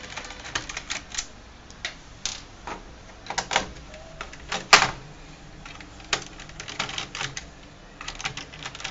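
Irregular clicks and taps of hands handling a Dell Inspiron laptop's plastic base and a screwdriver working at its screws, with one sharper click a little before halfway.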